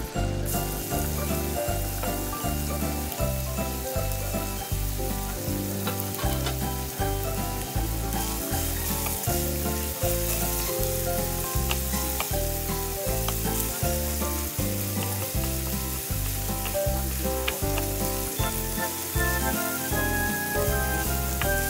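Minced garlic sizzling in olive oil in a ceramic frying pan, a steady hiss, while a wooden spatula stirs it around. Background music with a steady low beat plays underneath.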